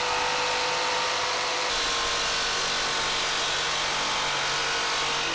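Electric jigsaw cutting a round hole through a plastic cover plate, running at a steady speed.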